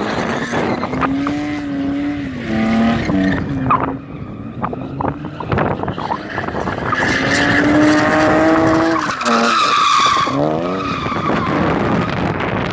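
BMW drift car's engine revving hard through a drift, its pitch climbing, holding and dropping away, with a fast falling sweep about ten seconds in as the revs come down. Tyres squeal and skid on the concrete.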